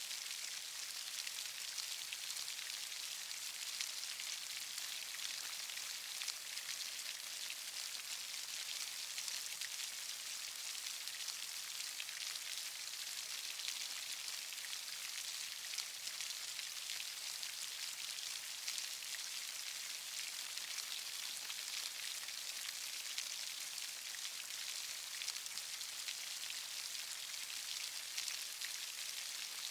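Steady rain: an even hiss of many small drops pattering on surfaces, with faint individual drop ticks and no change in strength.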